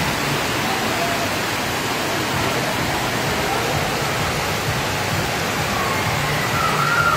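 Floodwater rushing down a street in heavy rain: a steady, unbroken wash of water noise.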